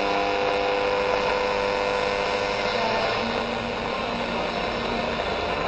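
AM radio tuned across the medium-wave band between stations: steady hiss of static with faint tones from a weak distant station underneath, the tones changing about three seconds in as the tuning steps on.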